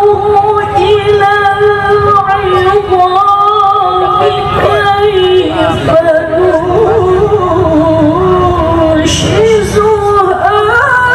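A woman's voice chanting melodic Qur'an recitation (tilawah) into a microphone, in long held notes with ornamented turns that climb in pitch near the end.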